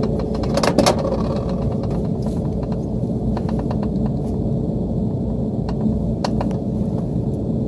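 Metal clicks and taps from hand-tool work on a rooftop unit's blower motor and sheave: a quick run of evenly spaced clicks that stops about half a second in, then a few scattered sharp clicks, over a steady low rumble.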